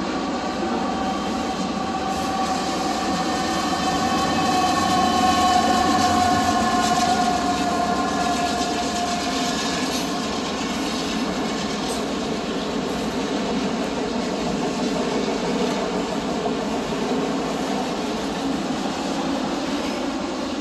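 CPKC freight train rolling steadily past, with the continuous rumble and clatter of wheels on rail. Through the first half a long, high-pitched wheel squeal rings over it, peaks, then fades out about halfway through.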